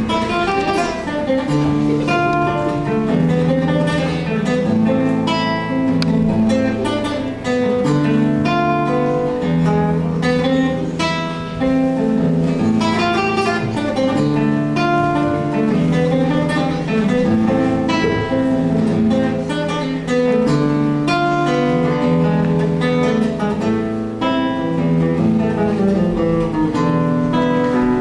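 Acoustic guitar playing a piece, quick plucked notes over bass notes that change every second or two.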